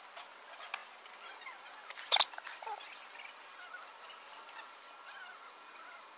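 Fast-forwarded background sound pitched up into squeaky, chirping noises, with one short, loud squawk-like burst about two seconds in.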